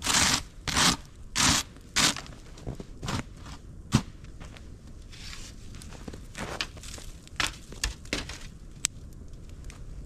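Snow shovel scraping snow off a metal mesh grill grate: four quick, loud scraping strokes in the first two seconds, then lighter scrapes and a single sharp knock about four seconds in.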